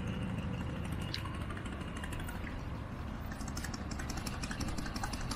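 Road traffic: a steady low rumble of passing cars and engines. A run of fine crackling clicks joins it a little past halfway.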